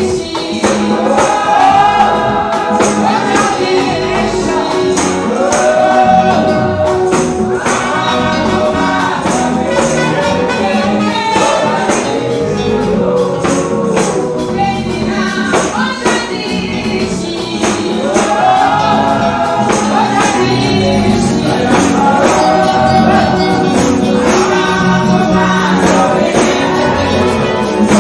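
A girl's voice singing a gospel song through a microphone, over amplified live church music with steady percussion keeping the beat.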